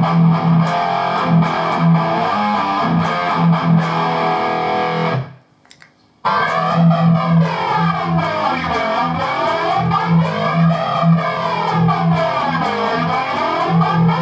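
High-gain distorted electric guitar playing a chugging metal riff, first dry with the Boss BF-2 Flanger switched off. After a short pause about five seconds in, the riff comes back through the engaged flanger, with its jet-like sweep slowly rising and falling.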